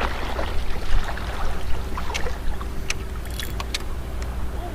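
Wind rumbling on the microphone over breaking surf, with a few short sharp clicks in the second half.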